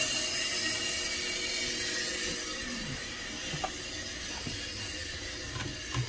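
Water running through an electronic automatic water feeder into a steam boiler as it fills: a steady hiss with a few faint ticks.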